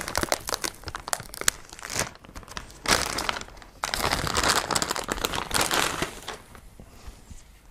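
Shiny anti-static plastic bag crinkling in irregular bursts as a graphics card is unwrapped from it, dying away near the end.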